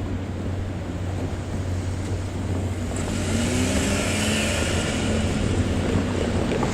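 JNR DE10 diesel-hydraulic locomotive's V12 diesel engine running with a steady low drone. About halfway through, the engine note rises and the sound grows louder, as when the locomotive is throttled up to move during shunting.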